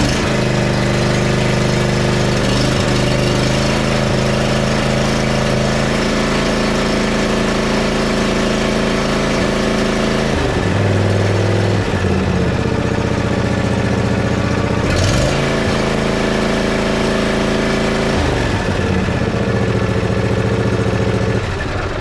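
Briggs & Stratton 20 hp V-twin engine on a John Deere Z335E zero-turn mower running steadily just after starting, its speed shifting a few times, around the middle and again later. It runs smoothly, now that the sticking valve and pushrod problem behind its popping and loss of power has been repaired.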